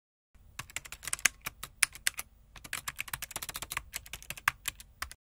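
Typing sound effect: rapid, irregular clicks of keys being struck, starting about a third of a second in and stopping just before the end, over a faint low hum.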